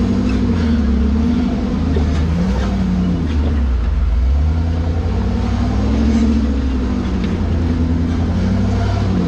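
Engine of a built Jeep TJ rock crawler on 40-inch tires revving up and down in slow surges as it crawls up and over rocks.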